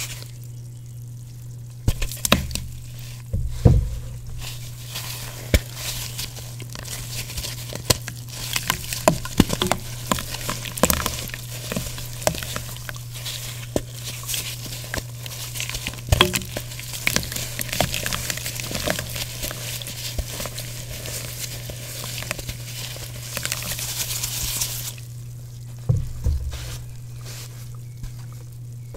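Wet block of gym chalk crackling and crumbling, a fizzing sizzle full of small crunches and squishes, with a few louder crunches; the crackle stops about 25 seconds in.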